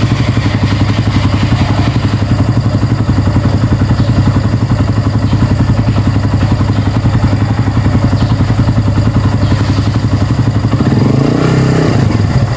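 Kawasaki Barako 175 motorcycle's single-cylinder four-stroke engine idling with an even, rapid chug, given a short rev that rises and falls near the end.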